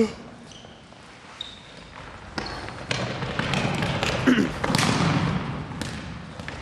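Futsal ball kicked and bouncing on a wooden gym floor, a few sharp knocks from about two seconds in, the loudest near the end, with sneakers squeaking briefly on the boards and players shouting, echoing in the large hall.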